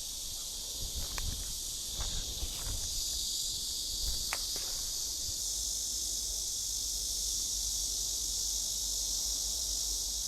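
Steady, dense high-pitched chorus of insects buzzing without a break, with a few faint light clicks in the first half.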